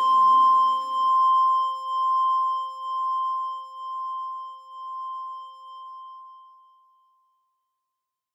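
The ending of an electronic cover song made in GarageBand. The lower chord tones stop within the first two seconds, and a single high sustained tone, pulsing about once a second, fades away and falls silent about seven seconds in.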